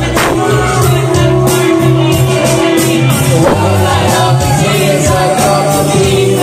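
Karaoke: a loud backing track with a steady beat, and people singing over it.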